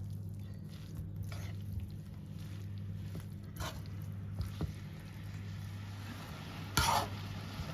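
Cooked linguine being stirred and tossed with chicken and vegetables in a wok: soft squishing and light clicks and scrapes of the utensil over a steady low hum, with a brief louder scrape near the end.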